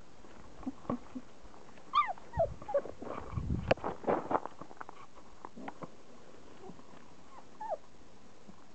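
Young German Shepherd puppies whimpering in short, falling squeaks, with a cluster of scuffling knocks and clicks about three to four seconds in.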